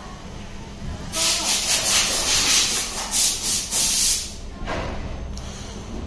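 Cordless drill with a screwdriver bit running for about three seconds, backing screws out of a coffee machine's steam solenoid valve, then a shorter run near the end.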